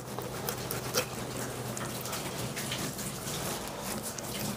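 Water running and splashing, with a faint low steady hum underneath.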